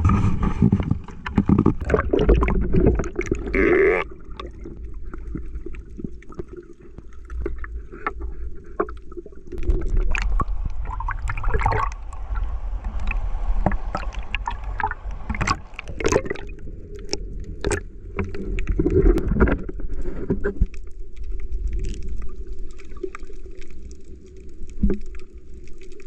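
Water sloshing and splashing against a handheld waterproof camera as a swimmer wades in and snorkels, with knocks and rumble from the water moving around it. At times the sound turns muffled and bubbling as the camera dips under the surface.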